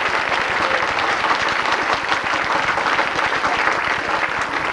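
Audience of many people applauding, a steady clatter of clapping hands.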